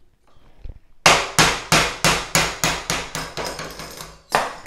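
Steel hammer striking a small pin punch about a dozen times, roughly three blows a second, with a ringing metallic clank, then one harder blow near the end. The punch is driving a pin out of a steel C-clamp held in a bench vise to take the clamp apart.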